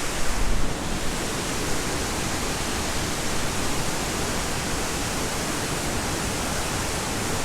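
Steady rushing noise of the waterfall and river in the gorge below, with a brief low rumble in the first second.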